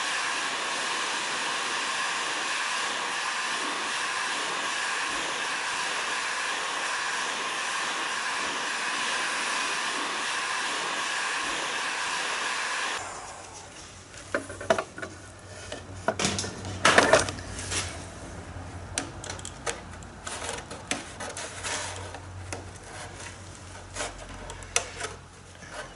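Electric heat gun blowing steadily with a whine of its fan, heating thin walnut strips to soften them for bending; it cuts off abruptly about halfway through. After that, light taps and knocks of the strips being pressed down onto the hull by hand.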